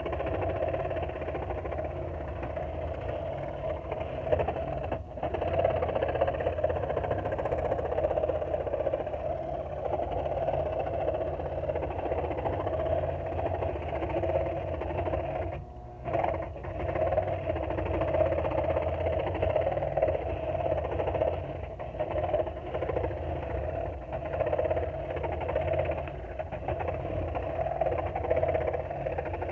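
Porter Cable scroll saw running steadily, its reciprocating blade cutting through quarter-inch MDF as the piece is turned along a curve; the sound dips briefly about halfway through.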